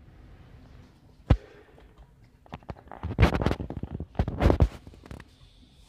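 Hands picking up and handling a sneaker with a rubber sole: a sharp knock about a second in, then bursts of scraping and rubbing as the shoe is lifted and turned.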